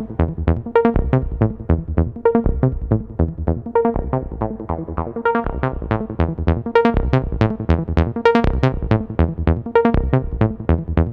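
Electronic background music: a stripped-down synthesizer passage of quick repeated notes, with fuller drums and bass dropped out.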